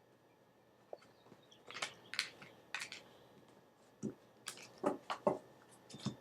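Tarot cards being handled: a string of short brushing and tapping sounds as cards slide and are set down, starting about a second in.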